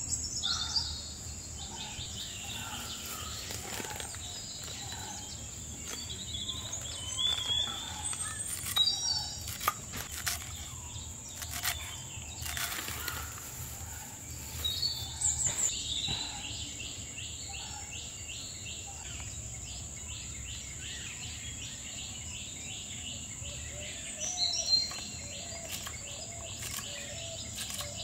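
Steady high insect drone with birds chirping and trilling, and a few sharp knife clicks on a wooden chopping board, mostly in the first half.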